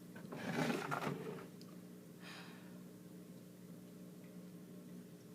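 A person's long, exasperated sigh about half a second in, followed by a shorter breath about two seconds in.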